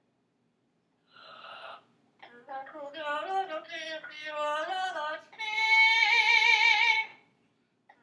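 A parrot singing in an operatic style. A short breathy note comes about a second in, then a run of wavering sung notes, then a long, loud held note with a wide vibrato that stops about a second before the end.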